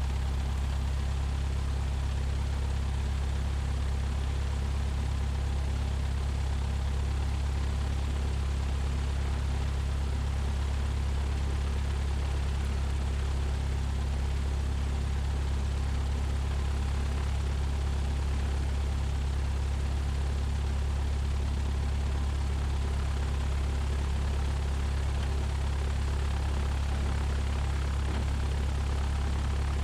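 Single-engine Cessna 172's piston engine and propeller running at low power on the ground: an even, unchanging low drone.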